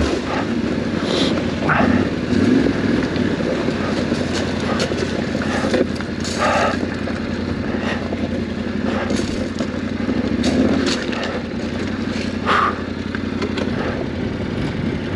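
Yamaha Ténéré 700 World Raid's parallel-twin engine running steadily as the motorcycle rides over a loose, stony track. Stones knock under the tyres, with a few sharper knocks scattered through.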